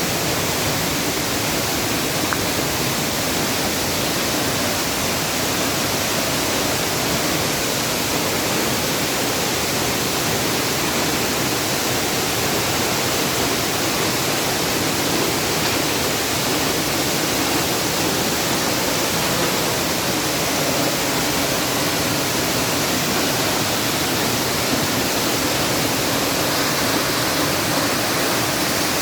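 Waterfall rushing, a loud, steady roar of falling water that never changes.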